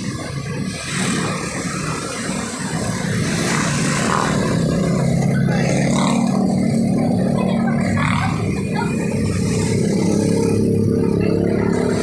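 A motor vehicle's engine running along with road noise. A steady low hum sets in about four seconds in.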